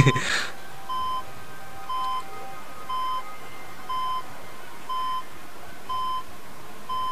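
Hospital patient monitor beeping steadily, one short high beep about once a second. A brief burst of noise at the very start.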